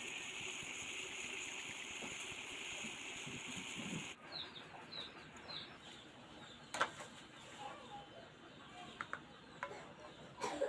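Steady hiss of tea boiling in a pan, cut off abruptly about four seconds in. After the cut, a few sharp clinks and small knocks, with faint high chirps.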